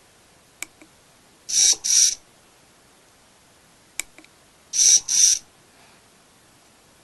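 Hobby servo motor turning a burette's stopcock in two dispensing cycles: each starts with a sharp click, then two short whirring buzzes about half a second apart as the stopcock is turned, about 0.2 mL of liquid being let out with each cycle. The second cycle follows about three and a half seconds after the first.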